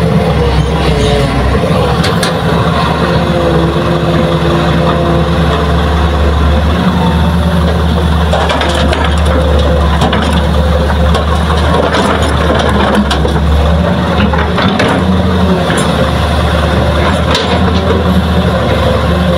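Hitachi crawler excavator's diesel engine running steadily under load, with a hydraulic whine that rises and falls as the boom and bucket swing and dump. Several sharp clunks as soil and rocks drop into the steel bed of the dump truck.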